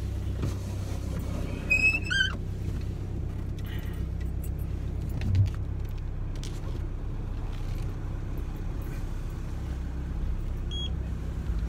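VW Mk2 Jetta's engine idling steadily, heard from inside the cabin, with a faint jingle of the key fob held out on a grabber. A short high beep sounds near the end.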